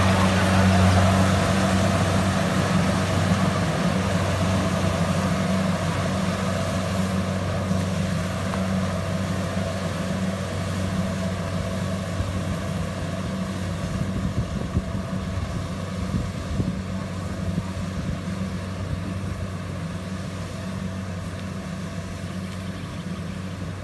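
Rice harvester running steadily, its engine drone gradually growing fainter, with a few short knocks in the middle.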